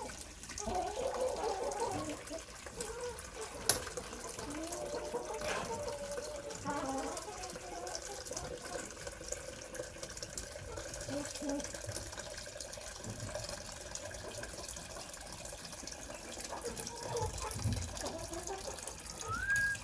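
Water running and trickling into a container, with chickens calling now and then.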